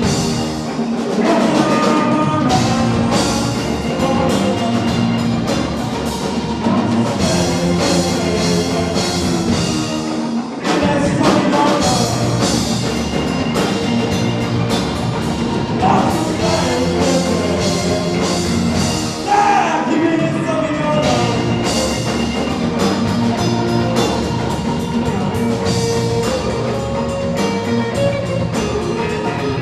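Live rock band playing with electric guitar, acoustic guitar, drum kit and keyboard, with a sung lead vocal over the band.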